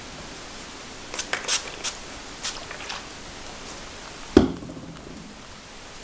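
Steady background hiss with a few brief rustles, then a single loud knock about four and a half seconds in.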